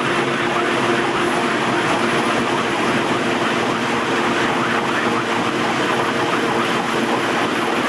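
Fire engine's diesel engine and road noise heard inside the cab at highway speed: a loud steady roar with a constant low hum underneath.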